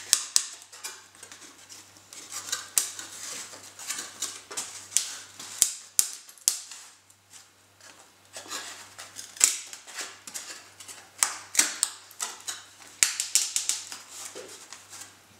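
Foamboard and Depron parts of a model plane being pressed and slotted together by hand: irregular sharp clicks, taps and light scraping of foam, with a quieter lull about halfway through.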